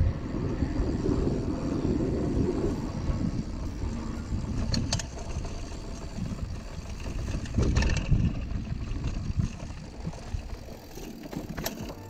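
A mountain bike being ridden over a dirt track and then grass, heard as steady wind rumble on the action camera's microphone mixed with tyre noise. A few sharp clicks and rattles from the bike come through.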